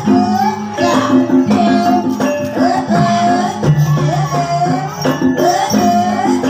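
Live gamelan music accompanying an ebeg horse dance: sustained low metallic tones over a steady beat, with jingling and a melody that bends up and down in pitch.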